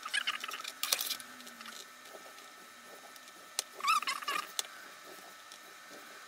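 Bone folder drawn along the grooves of a scoring board, scoring a three-layer sandwich of pattern paper and Tyvek: short scratchy scraping strokes with paper handling, and a briefly squeaky scrape about four seconds in.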